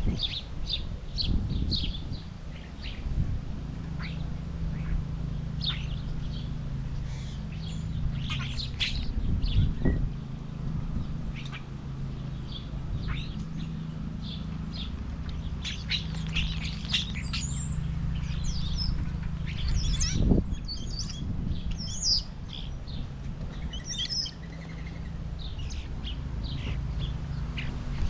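Small wild birds at a backyard feeder chirping in many quick, scattered calls, over a steady low rumble.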